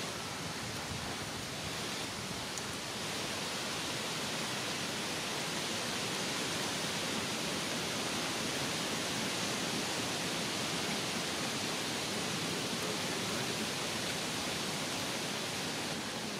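Steady, even hiss of outdoor background noise, with no distinct sound standing out.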